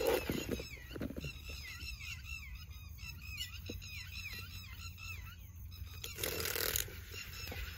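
Birds calling over and over, short arching calls several times a second, with a brief noisy rustle about six seconds in.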